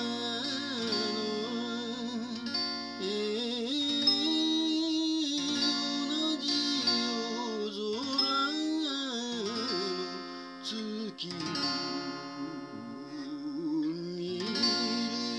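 A man singing a 1930s Japanese popular song with a wavering vibrato, accompanying himself on a strummed acoustic guitar.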